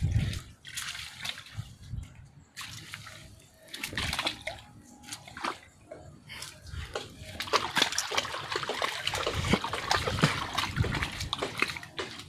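Shallow seawater splashing and sloshing in irregular bursts, sparse at first and busier and louder over the second half.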